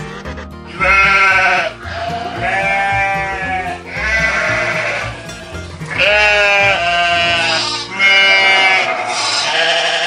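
A flock of sheep bleating: about six long bleats one after another, starting about a second in, over low background music.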